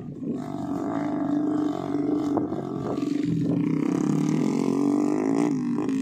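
A homemade trail motorbike's engine running at a steady pitch as it carries a sack of grain over rough rice stubble. The note wavers briefly near the end.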